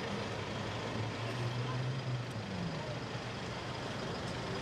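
Street noise with a motor vehicle's engine humming low, holding its pitch for a while and then sliding down about halfway through.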